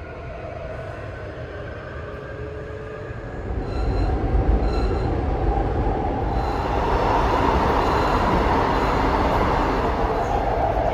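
Train running on rails, with a steady whine of tones at first and a louder rumble setting in about three and a half seconds in.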